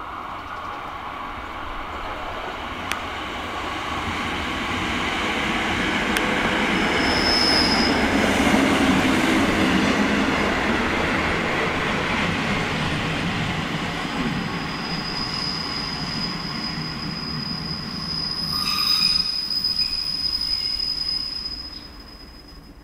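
A ČD class 810 diesel railcar approaching, running past and drawing away, its underfloor diesel engine and wheels on the rails growing louder to a peak and then fading. A brief high squeal comes in the middle, and a high, steady squeal runs for several seconds in the second half, with a burst of clatter near the end before the sound drops away.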